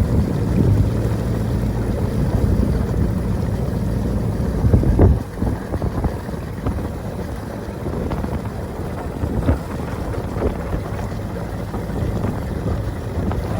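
Motorboat under way: a steady low engine drone mixed with rushing wind on the microphone. It is loudest for about the first five seconds, then eases slightly.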